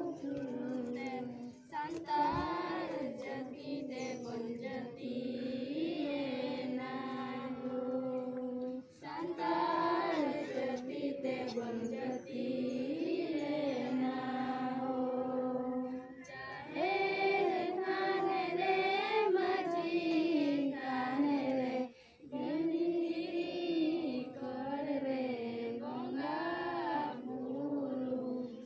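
A group of children and women singing a prayer song together in unison, in long held phrases with short pauses between them.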